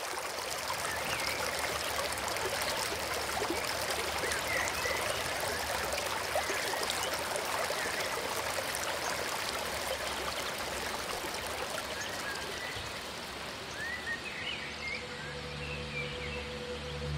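Running water of a stream, a steady rushing with small gurgles. About fifteen seconds in, low held music tones begin underneath.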